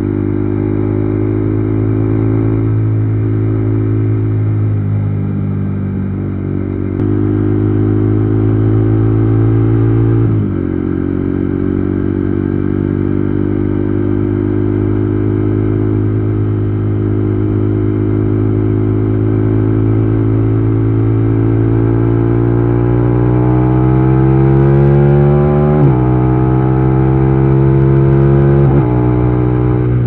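KTM Duke 390 Gen 3's single-cylinder engine through an Akrapovic exhaust, pulling hard under way through the gears. The pitch holds or climbs, then drops with each of several upshifts.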